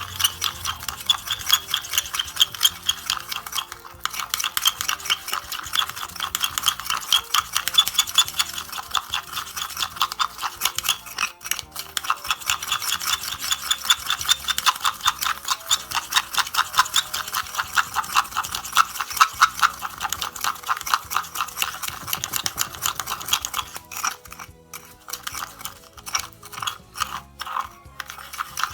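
Teaspoon beating sugar and the first drops of moka-pot espresso in a cup to whip up cremina, the sweet coffee cream: rapid, even scraping strokes that slow to a few scattered taps about 24 seconds in.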